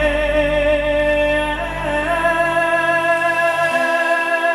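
Live pop song played loud through a concert sound system: long held notes, sung over sustained backing, step up in pitch midway. The low bass drops out about three seconds in.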